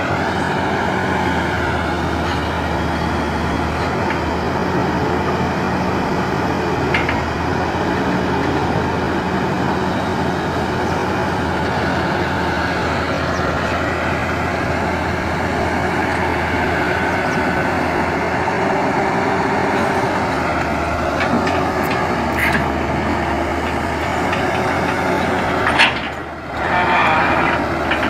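Crawler excavator's diesel engine running steadily as the machine crawls on its tracks over a steep dirt slope. The sound briefly drops out about two seconds before the end.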